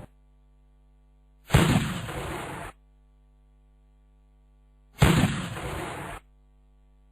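Cannon-shot sound effect played twice, about three and a half seconds apart: each a sudden boom that trails off over about a second.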